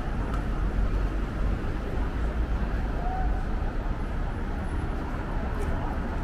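Busy city street ambience: a steady low rumble of traffic with the murmur of passers-by's voices.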